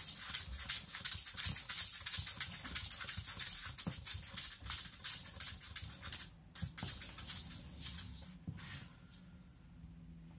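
Homemade string-spun drawing machine, a wooden clothespin piece with a small wheel, whirling and striking paper on a wooden board: a fast run of clicks that thins out about six seconds in, with a few last taps before it stops.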